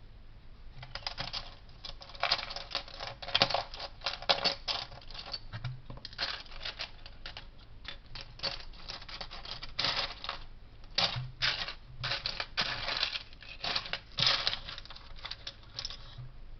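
Small plastic Lego pieces clicking and clattering in a dense, irregular run as they are handled and pressed together.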